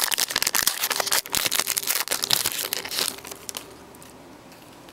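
Wrapper of a trading card pack being crinkled and opened by hand, a dense crackle for about three and a half seconds that then dies down.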